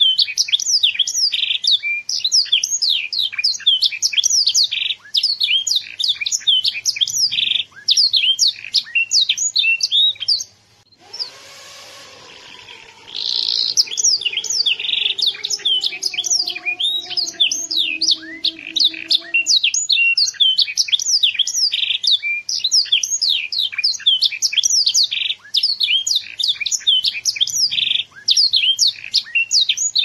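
Young domestic canary singing: a long, unbroken run of fast trills and quick rising and falling whistled notes, with a short break about a third of the way in.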